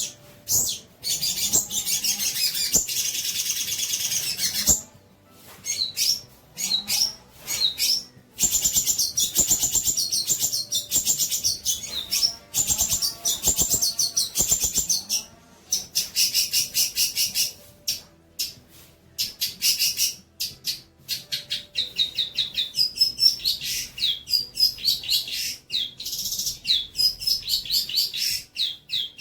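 Songbird song: fast chattering trills and runs of short, high whistled notes, broken by brief pauses.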